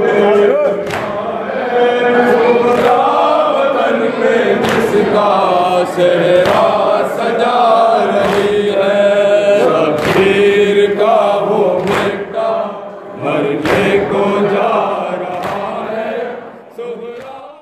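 Male voices chanting a noha, a Shia lament, in unison into a microphone, with sharp hand slaps on the chest (matam) keeping a beat about every one to two seconds. The chanting and slaps die away near the end.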